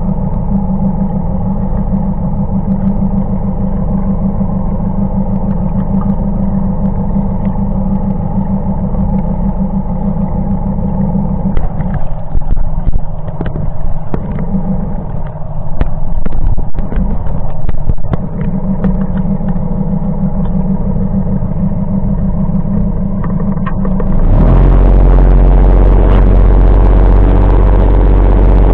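Boat's outboard motor running steadily with water rushing past the hull. About 24 seconds in the motor speeds up and the sound gets suddenly louder, with a hissing rush of churned water.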